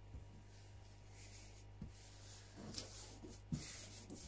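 Hands pressing and rubbing a freshly peeled sticker flat onto a smooth board: faint soft rubbing with a light tap a little past three seconds in, over a low steady hum.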